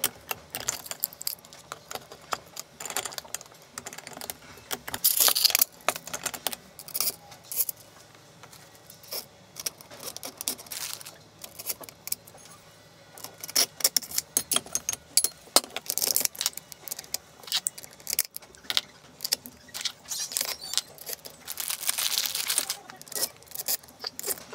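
Small metal hardware clinking and rattling as machine screws, washers and V-wheels are handled and fitted into a plywood plate: scattered sharp clicks with a few longer stretches of jingling.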